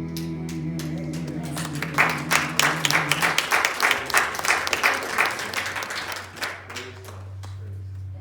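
Audience applauding at the end of a song, over the last held chord of the backing music, which fades out a few seconds in; the clapping dies away near the end.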